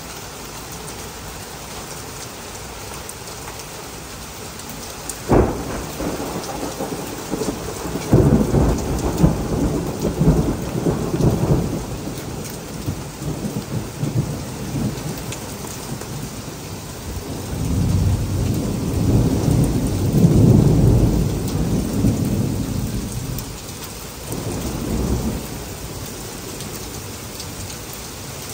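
Heavy rain falling steadily, with a sharp thunderclap about five seconds in and long rolling rumbles of thunder after it, the loudest a little past the middle.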